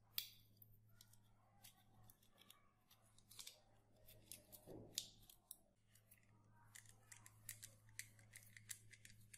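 Faint clicks and taps of hard plastic toy-gun parts being handled and pulled apart. From about seven seconds in comes a quicker run of small ticks as a screwdriver turns a screw in the plastic barrel, over a faint steady low hum.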